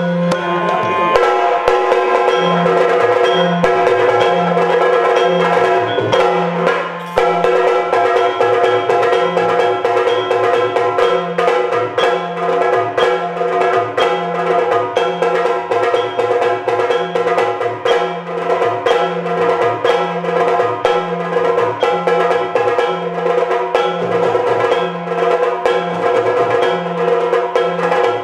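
Yakshagana percussion music: fast, dense chende drumming with a low pulsing drum beat over a steady held drone, no singing.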